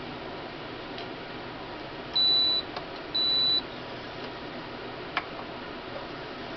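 Two short, high electronic beeps about a second apart, each about half a second long, over a steady hiss, with a single sharp click a few seconds later.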